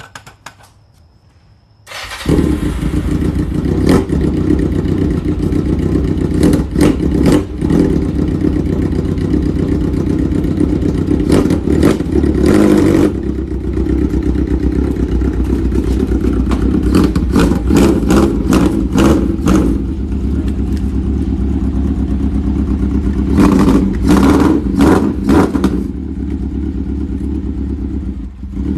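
Motorcycle engine firing up about two seconds in, then running steadily with repeated short revs of the throttle.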